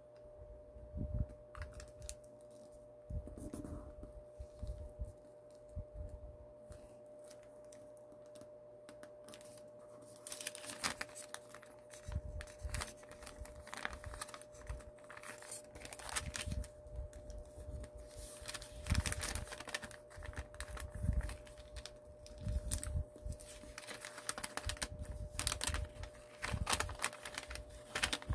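A square of origami paper being folded and creased by hand: irregular small clicks, taps and rustles as the paper is pressed and handled. It is sparse at first and busier from about ten seconds in, over a faint steady hum.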